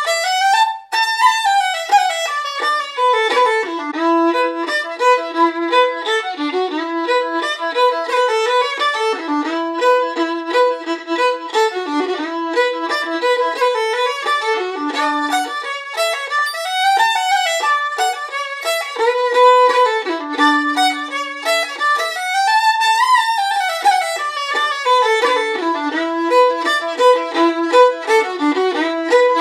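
Background music: a solo fiddle playing a tune of quick notes with slides between them.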